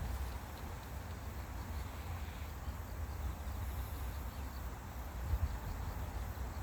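Wind rumbling on the microphone, with faint insects chirping in the background.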